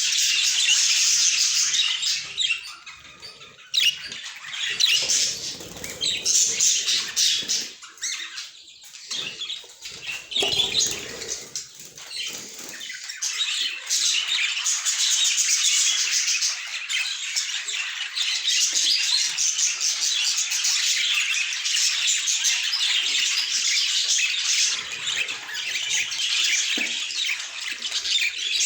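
Budgerigars chattering, a dense run of rapid overlapping chirps and squawks that thins out briefly near the start, with a short lower rustle about ten seconds in.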